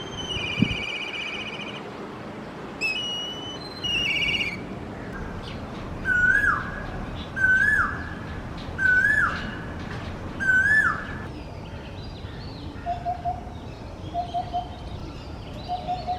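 Several different birds calling one after another: first high, buzzy chirps, then five loud whistled calls, each rising and then dropping sharply, then soft low hoots in groups of three.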